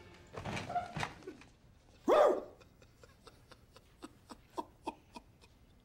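A man's voice: one loud wavering cry about two seconds in, then a run of short, rapid whimpering sobs, about three or four a second.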